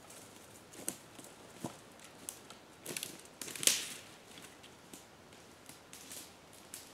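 Footsteps crunching through dry leaf litter, needles and twigs on a forest floor, one crisp crackle about every 0.6 to 0.8 seconds at a walking pace, growing fainter as the walker moves away.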